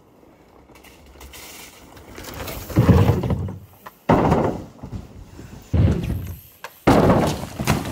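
A mountain bike rolls up a wooden kicker ramp and lands with heavy thuds on a foam crash mat. Four loud, sudden thumps are spread over the last five seconds.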